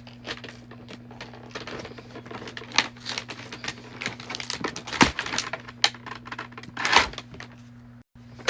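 Rustling, crinkling and scattered clicks and knocks of objects being handled, over a steady low hum.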